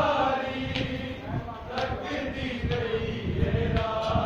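A group of men chanting a noha together in unison, with held, wavering notes and a few scattered knocks.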